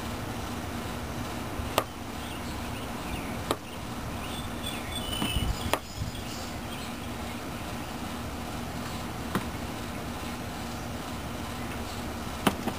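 A small bird striking its own reflection, making sharp single taps against the hard reflective surface about five times at irregular intervals of one to three seconds.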